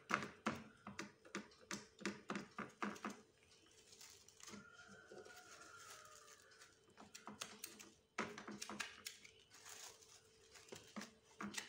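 Plastic cling film crinkling and crackling in quick, irregular clicks as hands press and smooth it over soft chocolate in a metal tray, with a quieter pause in the middle.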